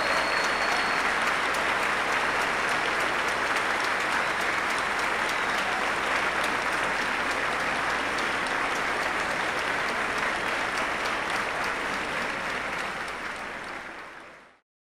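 A large audience applauding steadily, fading out near the end.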